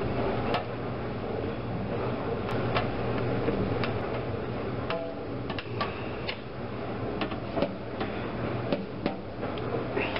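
Metal spoon stirring and pressing cooked okra in a plastic colander, with irregular clicks and scrapes of the spoon against the colander over a steady low hum.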